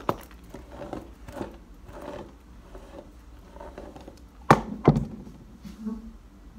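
Hair being brushed and handled, soft rustling strokes, then two sharp knocks about half a second apart, some four and a half seconds in.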